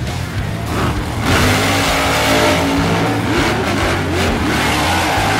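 Losi LMT RC monster truck's electric motor and drivetrain whining, getting louder about a second in and then rising and falling in pitch as the throttle is worked.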